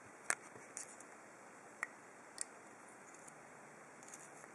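A handful of short, sharp little metal clicks from a disassembled lock cylinder being handled as its pins are removed. The loudest comes just after the start.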